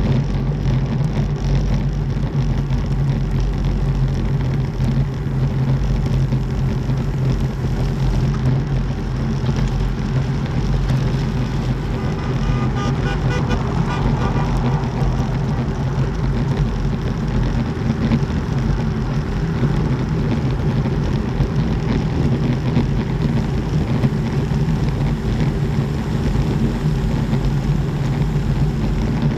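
Steady wind noise buffeting an action camera's microphone, with the rumble of racing-bike tyres on brick paving, at about 40 to 50 km/h.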